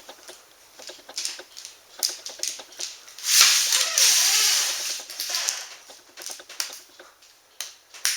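Quick scraping and tapping of a utensil spreading ground beef thin on a dehydrator tray, broken about three seconds in by a louder noisy sound that lasts about two seconds.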